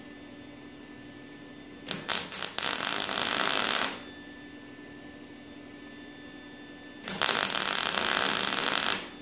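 MIG welder laying two tack welds of about two seconds each, a crackling sizzle of the arc, as a nut is welded onto a car's cowl panel. The first weld sputters on and off for a moment before it holds; a steady hum runs underneath.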